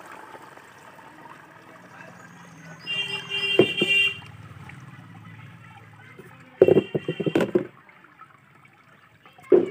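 Garlic and onion peel liquid trickling through a steel strainer into a plastic bucket, with two louder bursts of knocking and clattering about three and seven seconds in.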